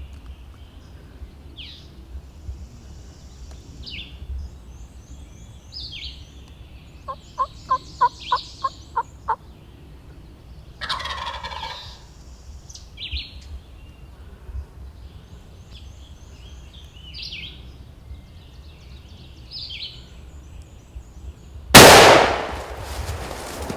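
Wild turkey calling, with songbirds chirping throughout: about a third of the way in comes a run of about eight yelps, then a gobble about a second long. Near the end a shotgun blast, much the loudest thing, goes off as the hunter shoots the gobbler.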